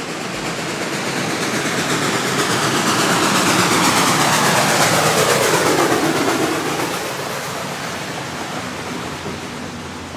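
A train passing by. The noise swells to a peak about halfway, then fades, with a pitch that slides down as it goes past.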